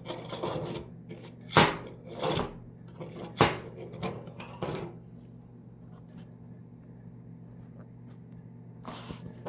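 Hard plastic being handled, rubbing and scraping in several loud rasping strokes during the first five seconds, then only a low steady hum.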